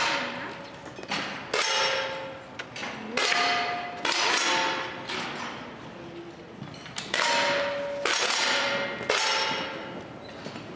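10 m air rifles firing, about eight sharp shots at irregular intervals from several shooters, each followed by a brief ringing tone and a hall echo.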